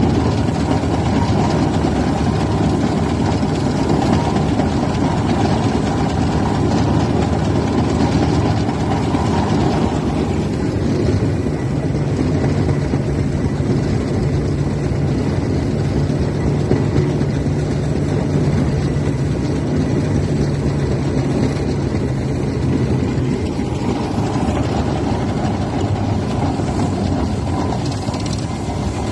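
Fowler steam ploughing engine running steadily, a loud continuous mechanical sound. A steady low hum joins about twelve seconds in and drops out about eleven seconds later.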